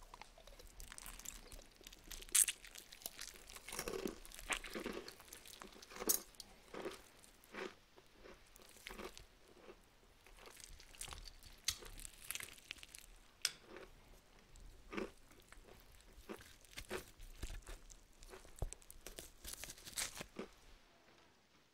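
Close-miked crunching and chewing of syrup-coated potato chips: many irregular crisp crunches, one bite after another.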